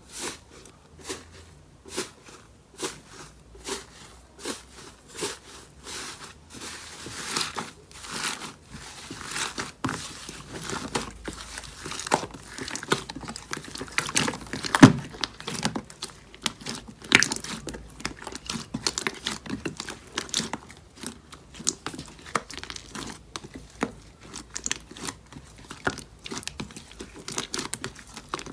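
Slime being handled and pressed, making a series of crackling clicks: spaced about a second apart at first, then coming thick and fast after about eight seconds.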